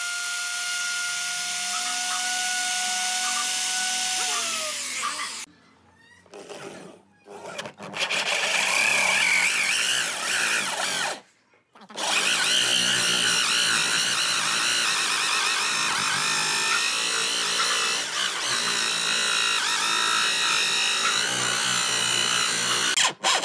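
Electric plunge router running with a steady whine as it cuts a groove in wood, winding down in pitch about five seconds in. After a short break, a power drill with a hole saw bores through a wooden board, a loud rough grinding cut that runs on steadily.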